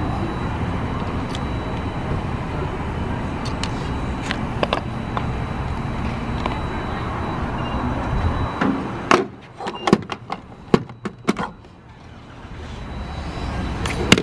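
Steady rushing hum of a gas station pump dispensing fuel into a car's tank. About nine seconds in it gives way to a quick run of sharp clicks and clunks, the sound of the nozzle being handled and the fuel door shut.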